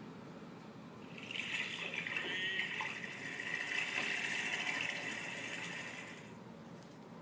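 Sound book's small speaker playing a splashing, trickling water sound effect. It starts about a second in and cuts off about six seconds in.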